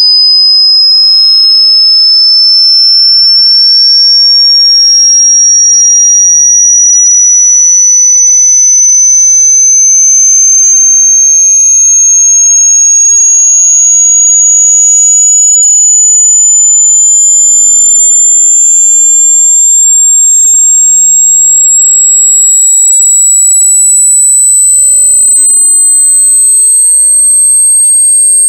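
A loud, pure sine-wave test tone gliding slowly and steadily upward through the high pitches: a frequency sweep signal used for burning in new speakers and headphones.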